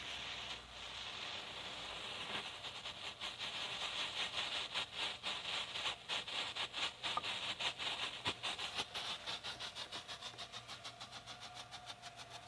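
Showtime Fireworks strobe firework burning: a steady hiss at first, then from a couple of seconds in a rapid, regular sputtering pulse several times a second, one with each flash, slowly fading toward the end.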